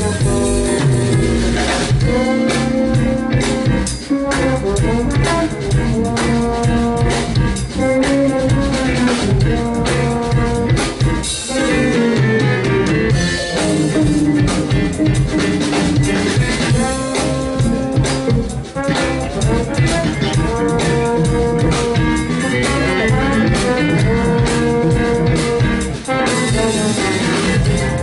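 Live jazz band playing: trombone, keyboard, electric guitar, electric bass and drum kit.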